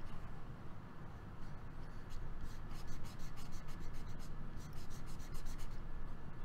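Stylus nib rubbing and scratching across a pen tablet's surface in quick, short strokes, bunched in two flurries, with a steady low hum underneath.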